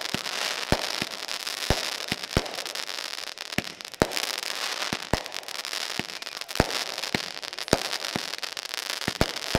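Aerial fireworks going off: a rapid, irregular string of sharp bangs, roughly two a second, over continuous crackling.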